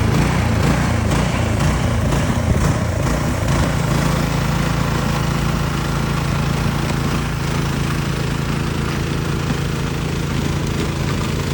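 An engine running, rough and uneven at first, then settling into a steady, even hum about three and a half seconds in.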